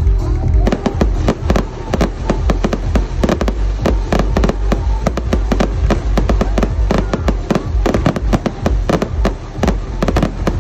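Fireworks display: aerial shells bursting in a rapid volley, many sharp bangs a second, starting about half a second in.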